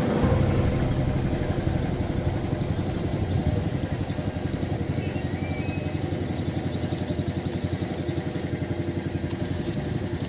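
Small boat's engine running steadily, with a fast, even chugging.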